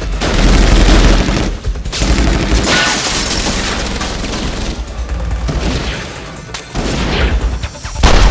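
A gunfight: a dense exchange of handgun fire with heavy booms and bullet impacts, coming in loud surges with brief lulls. An action music score runs underneath.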